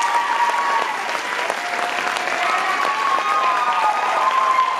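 Audience applauding a choir, with dense clapping and a few long drawn-out cheering shouts over it.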